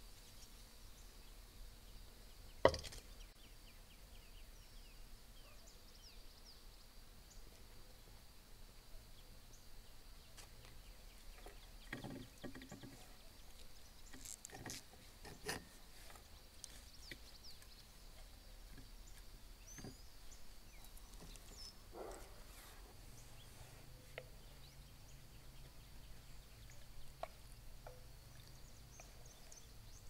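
Faint outdoor ambience with scattered small knocks and clicks of cookware and food being handled. The loudest is a single sharp knock about three seconds in.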